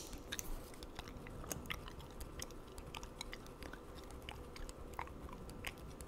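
Gum being chewed with the mouth open: irregular short clicks and smacks, a few a second.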